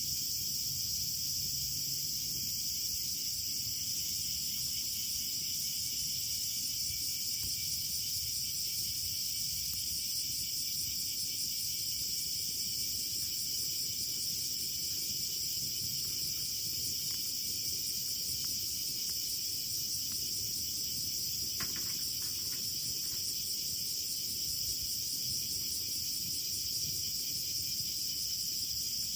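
Steady, dense chorus of crickets and other insects trilling at a high pitch, with a few faint clicks about three-quarters of the way through.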